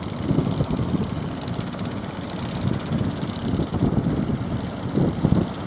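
Wind rumbling in uneven gusts on the microphone over a steady rush of sea and surf noise.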